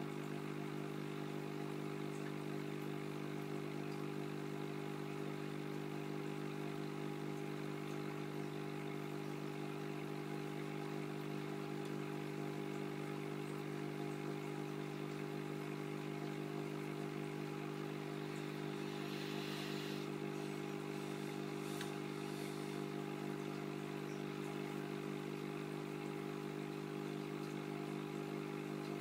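Steady electric hum of aquarium equipment, a pump running at an even pitch, with a brief faint hiss about two-thirds of the way through.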